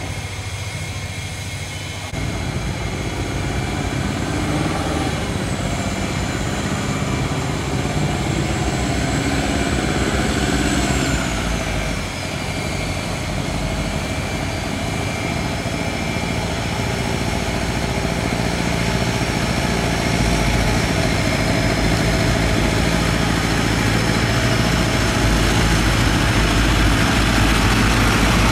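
A river cargo barge's diesel engine running steadily, getting louder about two seconds in. A faint high whine drops in pitch about eleven seconds in.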